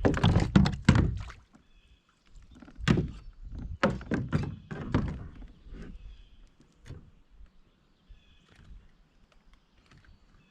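Hollow knocks and thuds of fishing gear against a kayak hull: a quick run of them at the start, another run a couple of seconds later, then one lone click.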